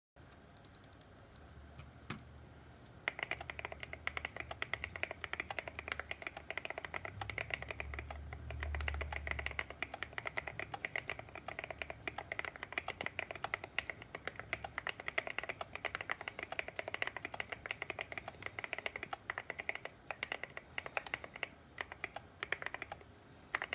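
Fast typing on a Monsgeek M1 mechanical keyboard with Akko keycaps: a dense, continuous run of keystroke clacks starting about three seconds in.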